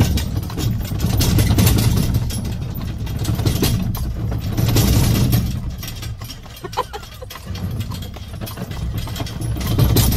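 Steady rumble of a horse-drawn cart rolling along a paved road, with wheel and road noise rising and falling every few seconds.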